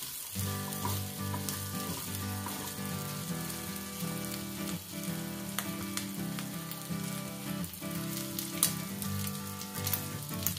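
Snail meat frying and sizzling in garlic butter in a pan, stirred with a wooden spatula over the first few seconds. Steady sizzle with scattered crackles, and one sharp crack about eight and a half seconds in.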